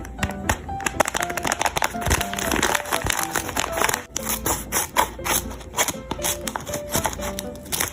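Background music with a simple melody of short held notes, over frequent sharp crackling and crinkling of paper being handled.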